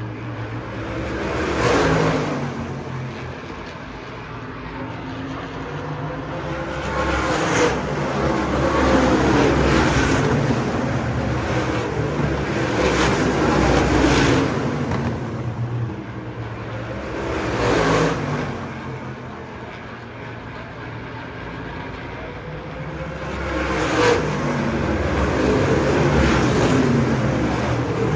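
ISMA supermodified race cars, open-wheel oval cars with big-block V8 engines, lapping the track. Their engine noise swells and fades repeatedly as cars come past the grandstand.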